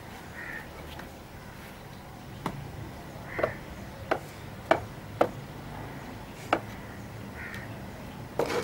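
A short wooden stick working soil over sown radish seeds in a fibreglass tub, giving about six sharp, irregular taps and clicks spread through the middle of the stretch.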